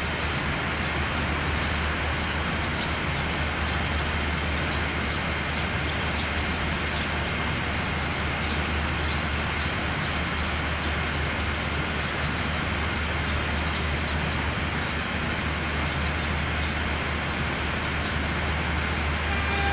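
Diesel locomotive engine idling with a steady low rumble, with short high chirps scattered over it. Near the end a higher pitched tone starts.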